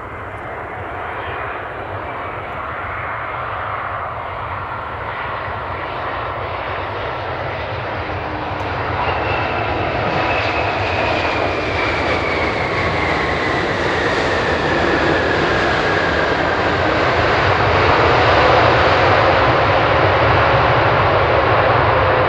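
Japan Airlines Boeing 787 jet airliner landing and rolling past, its engine roar growing steadily louder, with a whine that slides down in pitch as it goes by.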